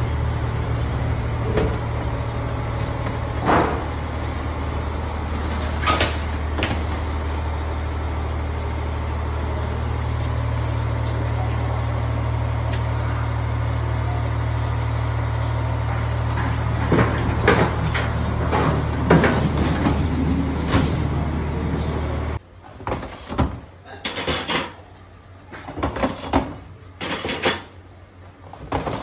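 Industrial rack oven running with a steady low hum, started from its control panel, with occasional metallic clicks and knocks over it. The hum cuts off suddenly about 22 seconds in. A series of sharp metal clacks and knocks follows, from the rack of baking tins and the oven door.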